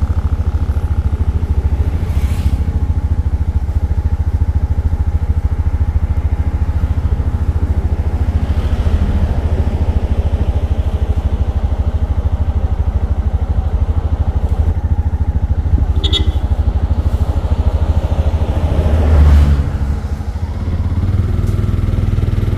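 Auto rickshaw (tuk-tuk) engine running steadily, a fast low putter throughout. A short sharp click comes about 16 seconds in, and the sound swells briefly around 19 seconds.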